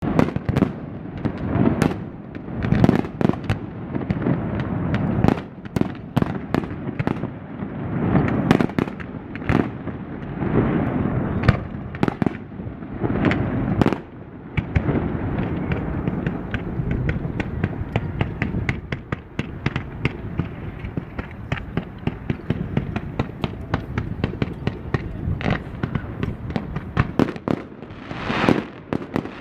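Fireworks display: loud bangs and deep booms with rumbling echo, then from about halfway a dense run of rapid sharp cracks.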